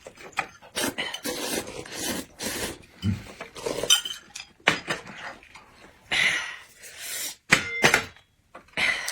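Close-miked eating sounds: irregular crunching and smacking while chewing boneless chicken feet, with crisp cartilage, mixed with clinks of dishes and utensils.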